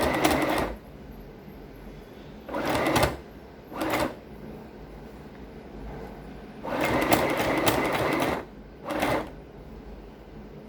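Sewing machine stitching through fabric in five short bursts, the longest about a second and a half near the middle, with the motor stopping between runs.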